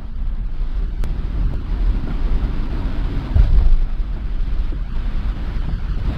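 Steady low rumble inside a bus cabin on a rain-soaked road: engine and tyre noise. A louder low thump comes about three and a half seconds in.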